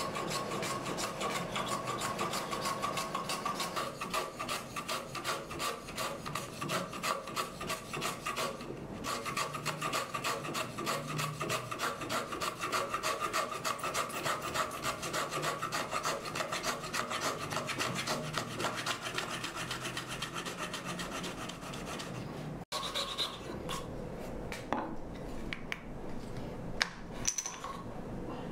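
Small Japanese wooden hand plane (kanna) shaving thin wood strips in rapid, repeated rasping strokes, several a second. Near the end this gives way to a few light clicks and taps as the wooden strip is handled.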